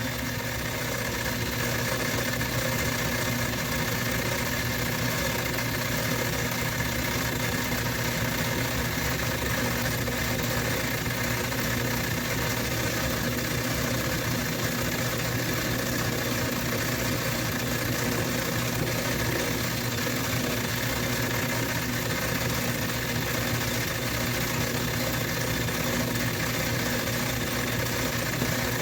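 Metal lathe running at a steady speed with a constant motor hum while it takes a 20-thou cut off a quarter-inch rod.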